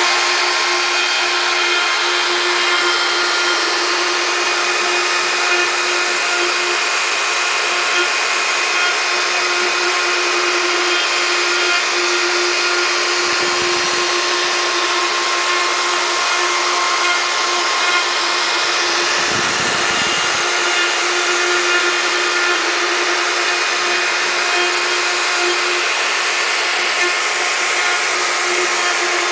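Wood router working as the spindle of a DIY CNC machine, running steadily at speed with a constant high whine as its bit carves a relief pattern into a wooden panel. Twice near the middle a brief low rumble passes under it.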